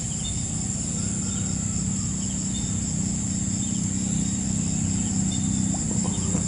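Insects, crickets, keeping up a steady high-pitched drone. Under it runs a low steady hum that fades out near the end.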